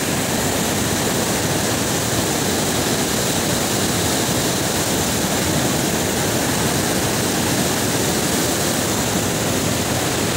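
Loud, steady rushing of a fast whitewater mountain river tumbling over boulders.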